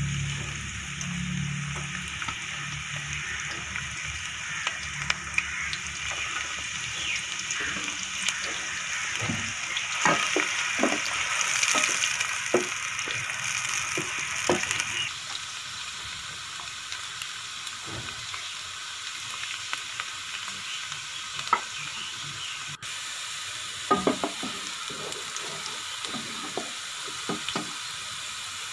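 Chopped onions frying in hot ghee with a steady sizzle, louder for a few seconds in the middle. A wooden spoon stirs them, clicking and knocking against the pot now and then.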